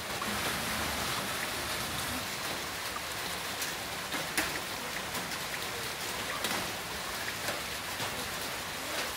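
Heavy rain falling steadily, a dense even hiss with individual drops striking a surface in sharp ticks now and then, the loudest about four and a half seconds in.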